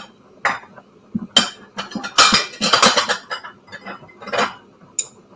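Kitchenware being handled: a string of clinks, knocks and clatters of dishes and utensils, busiest about two to three seconds in.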